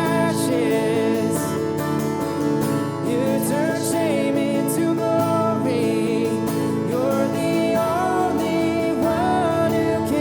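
A worship song with a singing voice over guitar accompaniment, the melody wavering above steady held chords.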